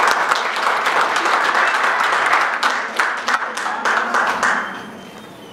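Audience applauding, many hands clapping together, which dies away about four and a half seconds in.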